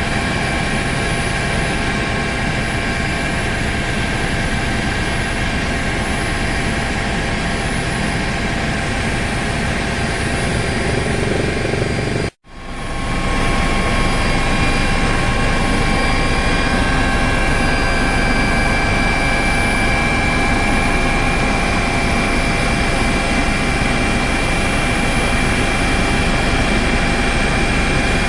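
Helicopter cabin noise: the turbine engine and rotor run steadily, with a constant high whine over a loud rushing drone. It cuts out for an instant about twelve seconds in and resumes.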